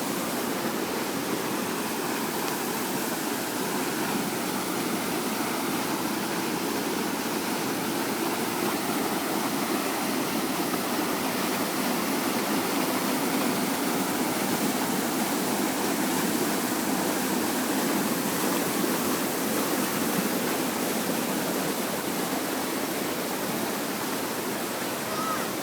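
Waterfall rushing: a steady wash of falling water.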